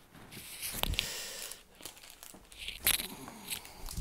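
Rustling and crinkling with scattered sharp clicks, the loudest about a second in and just before three seconds: movement and handling noise from someone walking through a room.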